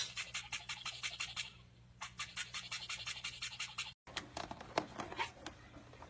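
Rapid, even scratchy strokes of a toothbrush's bristles scrubbing a cockatiel's beak, with a short pause partway through. After a cut about four seconds in, scattered light clicks of a caique's beak working at a plastic game-controller cord.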